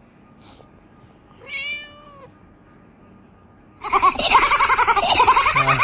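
A cat gives one drawn-out meow about one and a half seconds in. From about four seconds a loud, dense run of overlapping high-pitched cries starts and keeps going.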